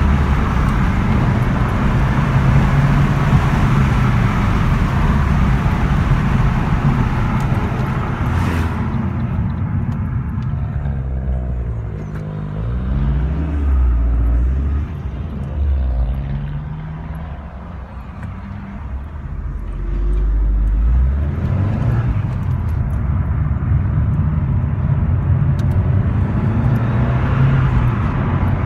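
Car driving, with engine and tyre noise heard from inside the cabin. About halfway through it slows to a stop, its engine note rising and falling at low level, then it pulls away and the steady road noise returns.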